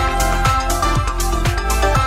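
Electronic dance music played loud over a festival stage's sound system: a steady kick drum about two beats a second under a synth melody.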